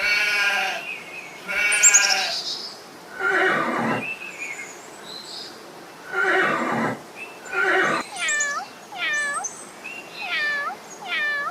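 Farm animal calls: several separate drawn-out bleats, then from about two-thirds of the way in a quick run of short, high, repeated calls, roughly one a second.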